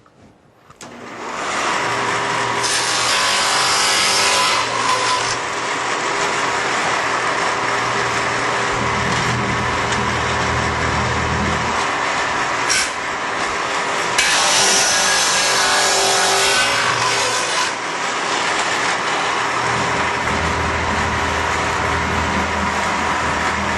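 Shopsmith table saw with a dado blade starting up about a second in and running steadily, with a dado blade cutting grooves across a wooden board in louder passes, about three seconds in and again around fourteen seconds in.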